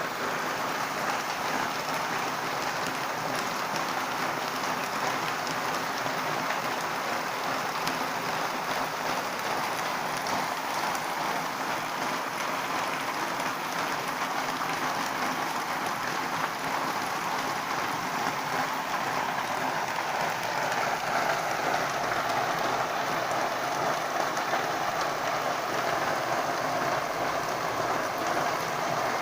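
Heavy rain falling, a steady dense hiss, growing slightly louder about twenty seconds in.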